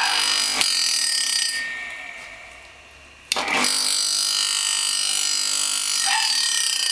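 Stainless-steel centrifugal juicer's motor running with a high whine. It is switched off with a click under a second in and spins down, then cuts in again suddenly a little past three seconds and runs at full speed.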